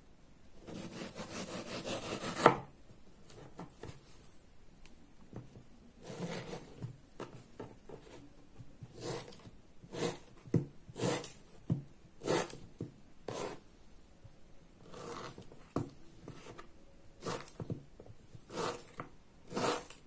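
Kitchen knife cutting a ripe manalagi mango on a wooden board: one long scraping slice near the start, then a run of short separate cuts, the blade knocking on the board about once a second.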